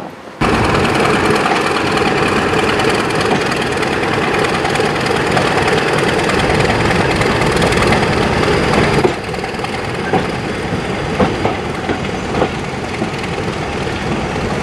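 Class 31 diesel-electric locomotive's English Electric V12 engine running steadily as it moves slowly along with its train. It starts abruptly, and drops a little in level about nine seconds in.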